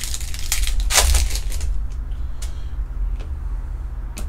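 Foil trading-card pack wrapper crinkling as it is handled and the cards are drawn out, then a few light clicks as the cards are flicked through by hand. A steady low hum runs underneath.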